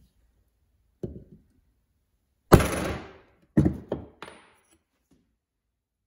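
Hammer blows on a steel stamp held against a knife blade, stamping a mark into the steel. There are four sharp metallic strikes about a second apart and a faint fifth; the loudest, about two and a half seconds in, rings briefly.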